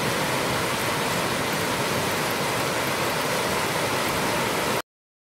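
Heavy rain pouring down in a cloudburst, a loud, steady hiss that cuts off suddenly near the end.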